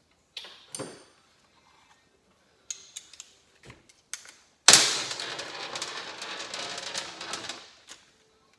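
A few light clicks and clinks of tools and a socket being handled, then a cordless DeWalt power tool runs in one loud burst of about three seconds, starting suddenly near the middle and tailing off.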